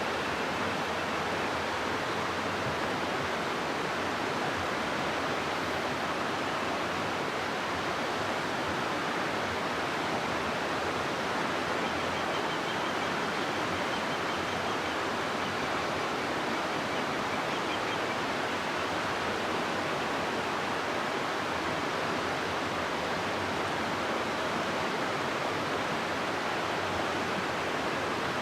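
River water rushing through a gorge: a steady, even rush of flowing water that holds the same level throughout.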